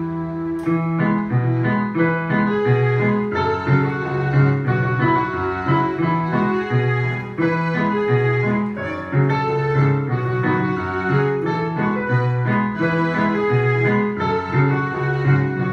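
Piano duet played on two digital pianos: a low repeating accompaniment in an even rhythm under a higher melody.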